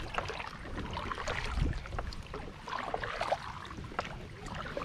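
Kayak paddle strokes in river water: the blade dipping and splashing, with water dripping, in two or three clusters.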